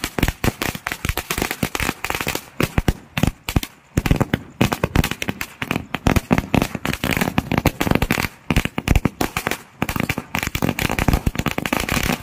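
A 10,000-wala string of firecrackers going off in a rapid, continuous chain of bangs, with a couple of brief lulls.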